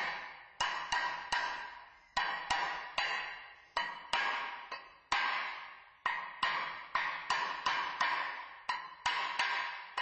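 A series of irregularly spaced ringing strikes, about one to three a second, each dying away over up to a second and all at the same pitch.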